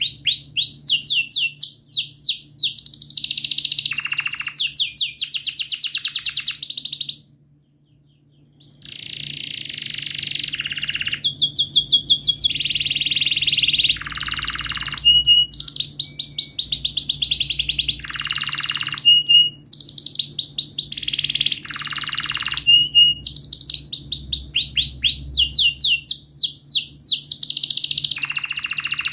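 Domestic canary singing a long, loud song of fast repeated chirps and rolling trills. The song breaks off for about a second and a half around seven seconds in, then resumes.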